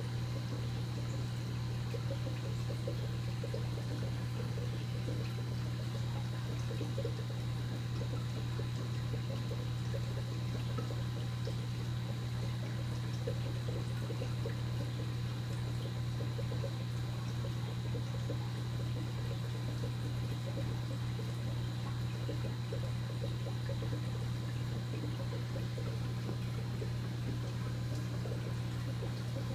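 Aquarium pump running with a steady low electric hum, over a constant trickle of water from the tank's filtration.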